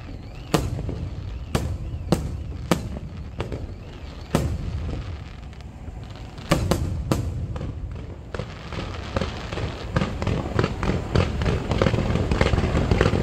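Fireworks display: aerial shells bursting with sharp bangs roughly every second, then from about eight seconds in a dense run of quick crackling reports as a low barrage of comets fires.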